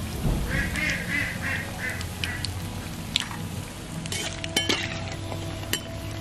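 A quick run of short quack-like animal calls for about two seconds, then a few light metal clinks of a steel slotted spoon against the wok and plate.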